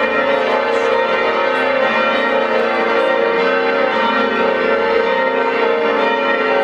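Church bells pealing together, a loud, unbroken ring of many overlapping tones with no pause.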